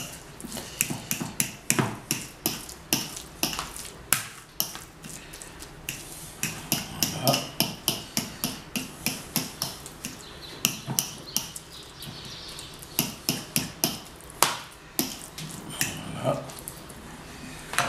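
Metal fork clicking and scraping against a ceramic bowl while mixing mashed avocado with lime juice, in irregular taps a few times a second.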